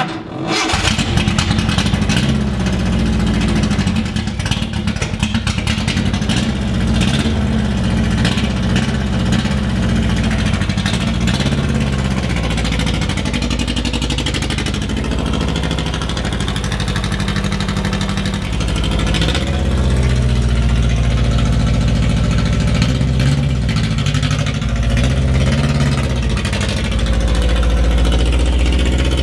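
Nissan Sunny truck's A12 four-cylinder engine with a straight-pipe exhaust catches and starts, then keeps running loudly, its note rising and falling with the throttle.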